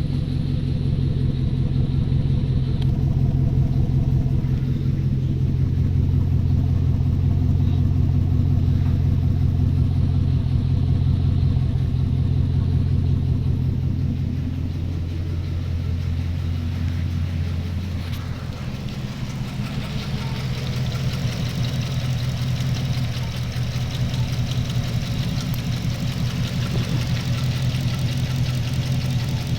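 Holden VE SS V's 6.0-litre pushrod V8 idling with a misfire, from a bent pushrod on cylinder 7. The engine note shifts about eighteen seconds in, then runs on steadily.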